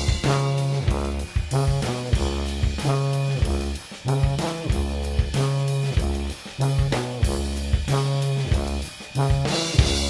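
Instrumental band music: a drum kit keeps a steady beat under a low bass line and a pitched melody instrument.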